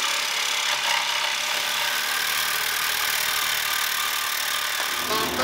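A ratchet wrench working a rusty bolt loose on an old truck engine during engine removal, giving a steady run of mechanical clatter that cuts off about five seconds in.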